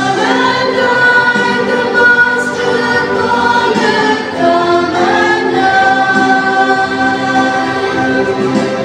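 A crowd singing a Christian hymn together in chorus, with long held notes, accompanied by a Yamaha PSR-I500 electronic keyboard.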